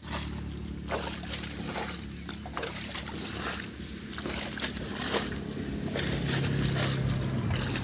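A small engine running steadily, a low drone that swells slightly near the end, with scattered wet clicks and small splashes of mud and water over it.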